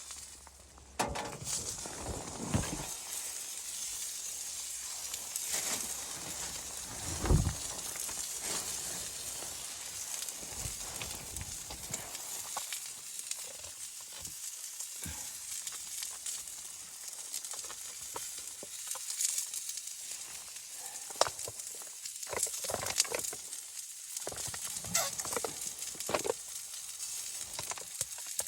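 Food sizzling steadily in a pan, with scattered clicks and knocks. The loudest is a single knock about seven seconds in.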